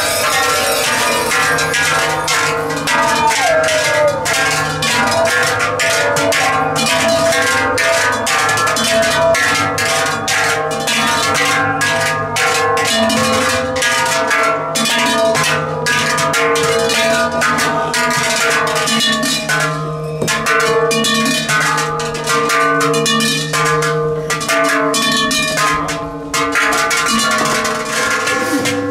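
A group of Silvesterchläuse singing a Zäuerli, a wordless natural yodel: several voices hold long chord notes under a gliding lead. Their brass crotal bells and large cowbells jingle and clank throughout.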